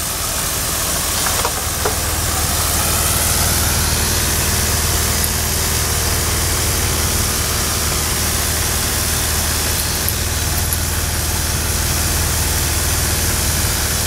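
Small steam donkey engine running steadily: a continuous hiss of steam over a low, steady rumble.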